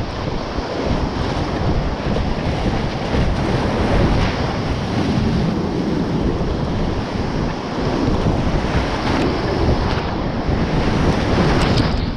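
Rushing whitewater of a river rapid close up, heard from a kayak running through it, with splashes from paddle strokes and water breaking over the boat.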